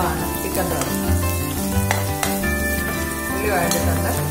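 Shallots, green chillies, curry leaves and ginger-garlic sizzling in hot oil in an aluminium kadai while a steel spatula stirs and scrapes through them. Instrumental background music plays underneath.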